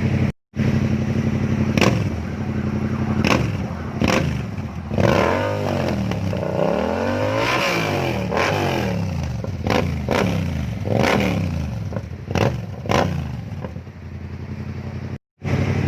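Yamaha MT-07's parallel-twin engine running, then revved up and down several times, the pitch rising and falling, with sharp cracks scattered throughout.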